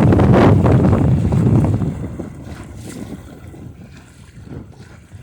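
Wind buffeting the microphone in a building breeze: a loud low rumble for about the first two seconds, then easing off.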